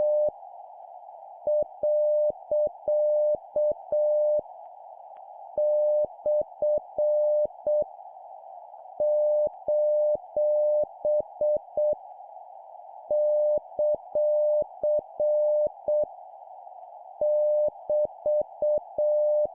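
Morse code sidetone keyed at 7 words per minute over a steady hiss, sending punctuation characters for copying practice. Each character is a long run of dots and dashes lasting about three seconds, with a pause of about a second before the next, so roughly one character every four seconds.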